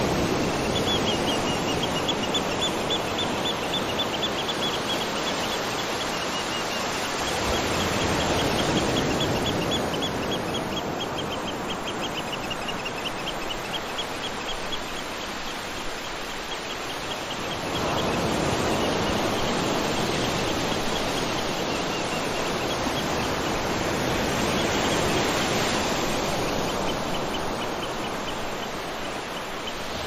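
Steady rushing water and rain, swelling and easing a few times, with a rapid, high-pitched ticking animal call repeating over it.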